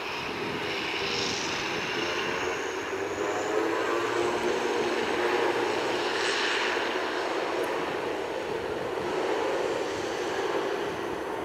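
Airliner engines running at an airport: a steady rush of engine noise with a faint whine, swelling a little in the middle.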